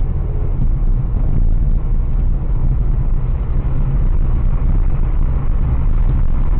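Road noise inside a moving Ford Fiesta at about 60 km/h: a steady low rumble of engine and tyres on the road, picked up by the windshield dashcam's microphone.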